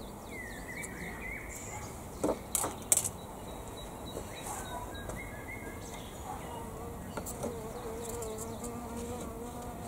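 A flying insect buzzing close by in the second half, a steady hum, over songbirds chirping. A few sharp knocks come about two to three seconds in, as garden sticks are handled.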